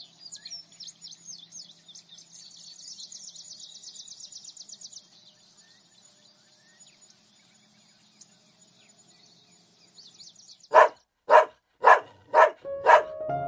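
Birds chirping in rapid, high trills over a steady high hiss. Near the end a dog barks five times, about half a second apart, and music begins.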